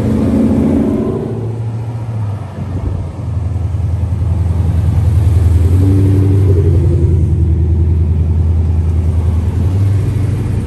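Ford Mustangs' exhausts rumbling deeply as the cars roll past one after another at low speed. The rumble dips briefly, then swells louder from about three seconds in.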